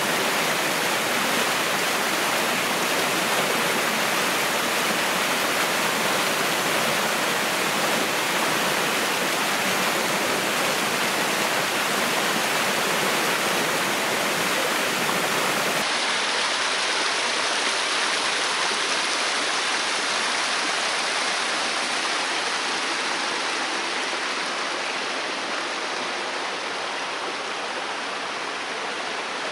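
Steady rushing of water falling at a small waterfall. About halfway through the sound turns a little duller, and it eases slightly toward the end.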